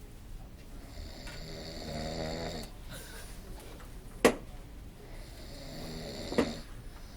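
A person snoring: one long, pitched snore about a second in, then a sharp click about four seconds in, and a second, fainter snore near the end that ends in another click.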